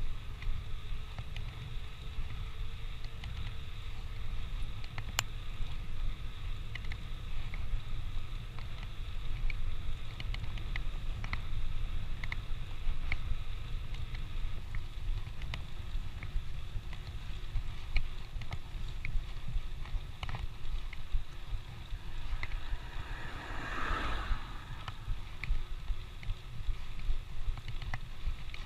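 Wind buffeting the microphone and road rumble while riding a bicycle, with scattered small clicks and rattles. A brief louder rush comes about 24 seconds in.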